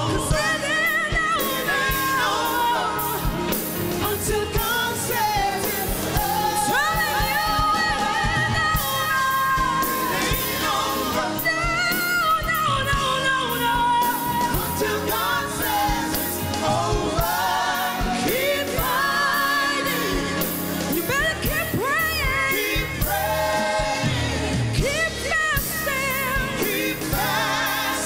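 Live gospel song: a woman's lead vocal with backing singers, over a band of drums, bass, keyboards and electric guitar playing steadily.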